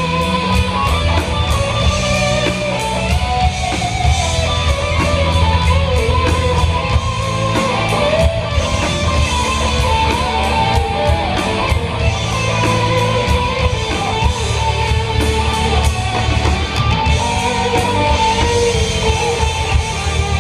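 Live rock band playing loudly: electric guitar lines over a steady drum beat and heavy bass.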